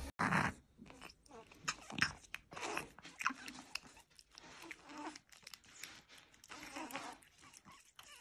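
A white Persian cat eating wet cat food off a spoon, with quick, irregular wet chewing and lip-smacking clicks. A brief louder noise comes right at the start.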